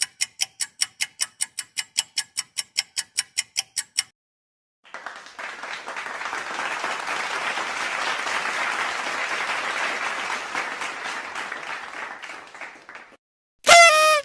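Sound-effect sequence: a rapid, even ticking at about five ticks a second for the first four seconds, stopping abruptly; after a short pause, crowd applause rises and fades away over about eight seconds; then a brief loud pitched sound right at the end.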